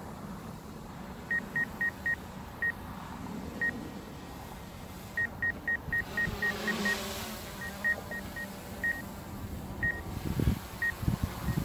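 Short, high electronic beeps in irregular runs from the DJI Mavic 2 Zoom's controller and app: the obstacle-sensing proximity warning, sounding as the drone closes on a tree while tracking. A faint low drone hum runs beneath.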